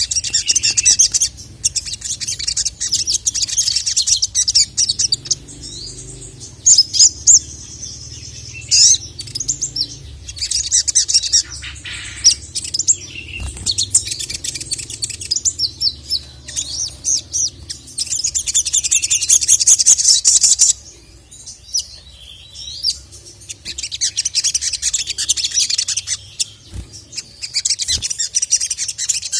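Sogon (sogok ontong) bird in full, energetic song: bursts of fast, high chattering trills broken by brief pauses, over a faint low hum. It is a calling song used as a tutor recording to provoke a male.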